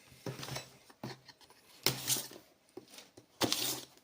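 Cardboard packaging being handled and opened: four short scraping, rubbing rustles, each under half a second.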